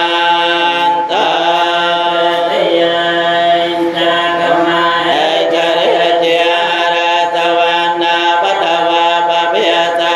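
Cambodian Buddhist paritta chanting: voices reciting the protective Pali verses in a steady, droning unison chant on long held notes.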